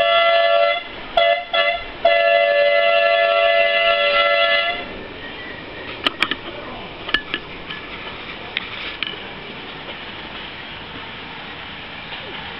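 A G-scale model train's whistle sounding two notes together: a blast that stops after a moment, two quick toots, then one long blast of about two and a half seconds. Afterwards a few light clicks.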